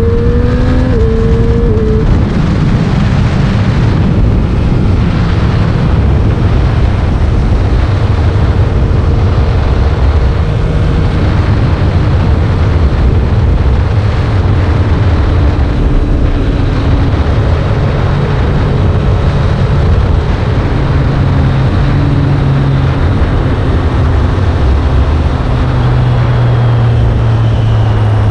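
2022 Triumph Street Triple 765 RS's inline three-cylinder engine running while being ridden. The revs rise briefly at the start, then the engine runs at a lower, fairly steady pitch that changes only a little, settling to a steady low note near the end.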